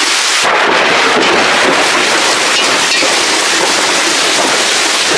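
Heavy rain falling, a loud, steady hiss with no let-up.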